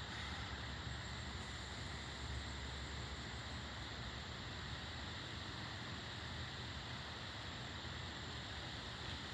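Steady outdoor ambience of a light breeze: low wind rumble on the microphone under a steady high hiss, with no distinct events.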